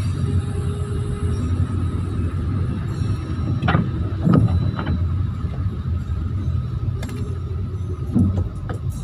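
Steady low rumble of a car creeping in slow traffic, heard from inside the cabin, with a few brief louder sounds about four seconds in and again near the end.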